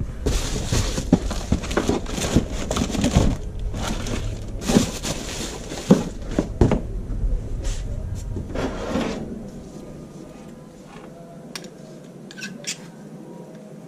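Hand-handling noises as a rubber band is fitted onto a part: rubbing with light clicks and knocks, busy for about nine seconds, then fainter scattered clicks. A low hum stops about ten seconds in.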